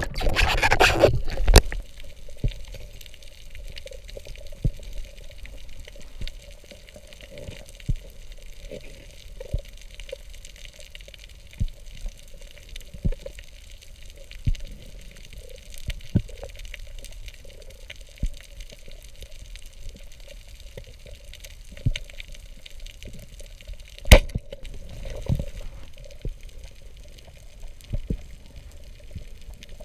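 Underwater sound of a diver swimming: about a second and a half of loud water rushing and bubbling at the start, then a quieter steady wash of water with scattered clicks and knocks, a sharp one about 24 seconds in.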